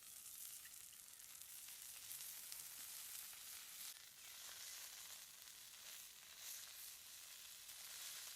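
Sliced eggplant and mushrooms searing on a hot stone, a faint steady sizzle with fine crackles.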